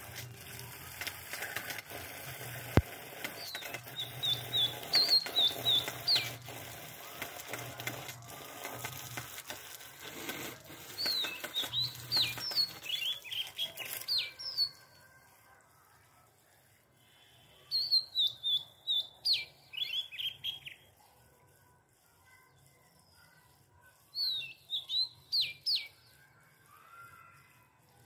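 A bird calling in four bouts of quick, high chirps, each note sliding down in pitch. A steady hiss lies under the first half and stops about halfway through.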